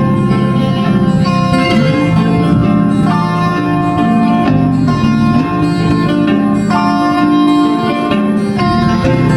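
Background music: plucked string instruments playing a melody over sustained notes.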